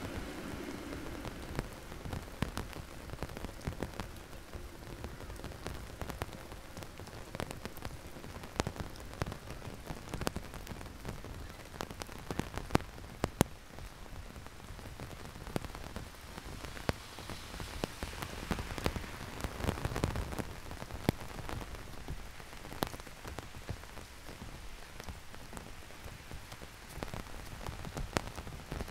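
Heavy rain falling, a steady hiss of rain with many sharp, irregular drop impacts close by. The rushing grows louder for a few seconds around twenty seconds in.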